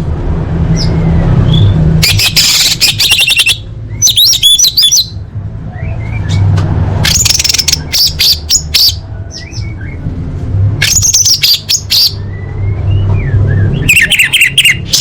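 Orange-headed thrush (anis merah) singing in bursts of fast, varied, high-pitched phrases, with short pauses between them. A steady low hum runs underneath.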